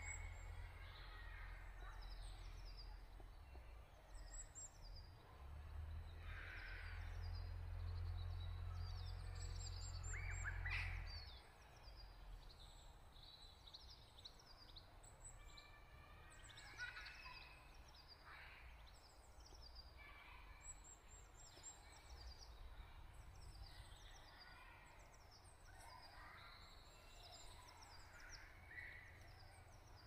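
A chorus of small birds chirping and singing, with many short, overlapping calls throughout. A low rumble sits underneath for roughly the first eleven seconds, then drops away.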